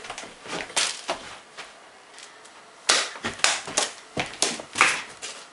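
Foil Magic: The Gathering booster pack being kicked and juggled with the feet: a string of sharp, irregular crinkles and taps, loudest and most frequent between about three and five seconds in.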